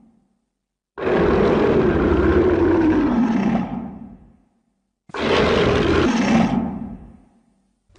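Godzilla's roar from the 1984 film, played twice as a sound effect: a first roar of about three seconds that sinks slightly in pitch and fades out, then after a second of silence a shorter roar of about two and a half seconds that also fades.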